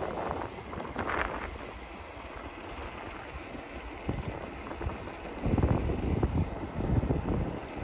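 Wind buffeting the microphone of a moving bicycle: a steady rushing noise with irregular low rumbling gusts, heaviest from about five and a half seconds in.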